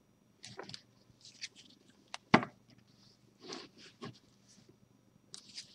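A deck of large, thin oracle cards handled in the hands: soft rustles and slides of card and fingers, with a sharp tap a little over two seconds in.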